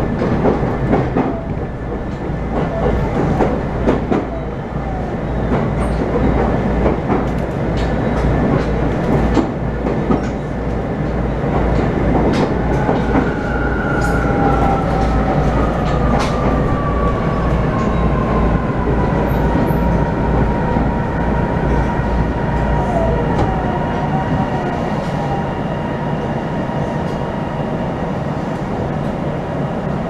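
Train running, heard from inside the carriage: a steady rumble of wheels on track with scattered clicks over the rail joints. A high whine slides down in pitch a little before halfway and then holds steady, and the deepest rumble eases about three-quarters through.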